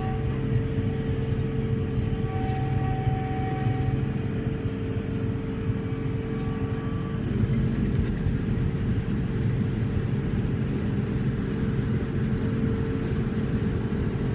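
Diesel engine of a large farm harvest machine running steadily under load, a constant heavy rumble with a steady hum.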